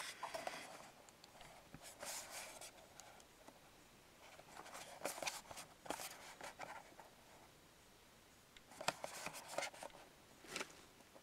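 Small cardboard box handled and turned in the hands: faint scraping and rustling of fingers and nails on the cardboard, in several short clusters with quiet between.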